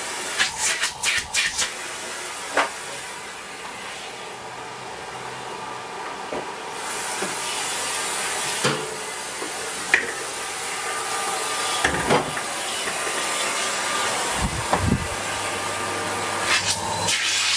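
Miele S8 cylinder vacuum cleaner running normally after reassembly: a steady rushing hiss of air that drops back for a few seconds and then grows stronger again, with clicks and knocks of the hose and tools being handled.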